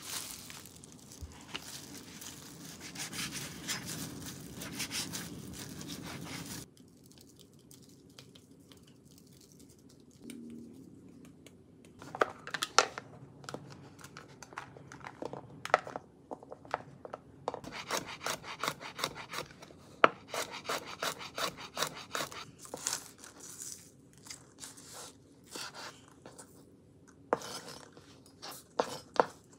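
Paper rubbing and tearing for several seconds, cutting off suddenly. After a quiet stretch, a run of irregular clicks and knocks follows: a plastic food container handled on a cutting board, then a kitchen knife chopping on the board.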